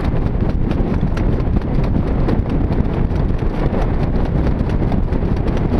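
Hooves of a harness horse striking a dirt track at speed, a quick even beat, over steady wind noise on the microphone.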